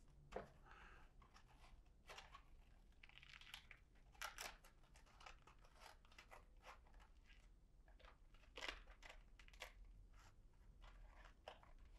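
Near silence broken by faint, scattered rustles, scrapes and light taps as hands press and smooth a replacement wrap tightly onto a Velcro drum, the clearest about four and nine seconds in.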